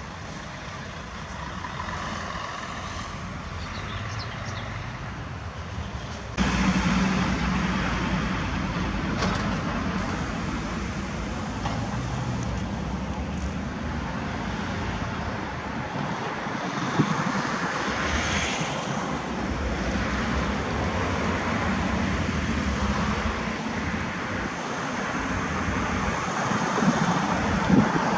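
Road traffic: cars and buses passing on a multi-lane road, a steady rumble of engines and tyres. Faint and distant at first, it jumps suddenly louder about six seconds in.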